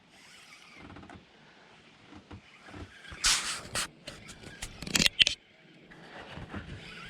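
A hooked bass splashing and thrashing at the water's surface during the fight: a few loud, irregular splashes and slaps about three seconds in, lasting around two seconds.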